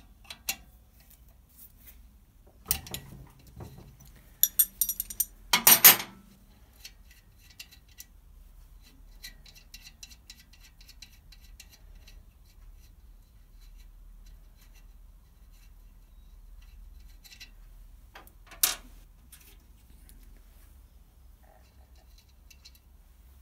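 Metal hand tools, a torque wrench and socket, clicking and clinking against the cylinder head nuts of a Citroën 2CV engine as they are tightened. A run of clinks comes in the first few seconds, the loudest about six seconds in, then one more sharp clink a little past the middle, with long quiet stretches between.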